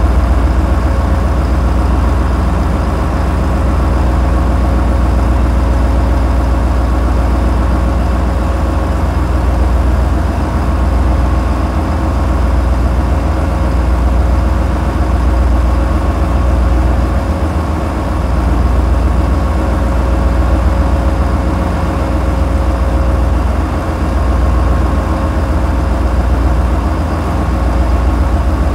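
A tugboat's 450-horsepower engines running at a constant speed: a steady, heavy low rumble with a steady hum above it that does not change.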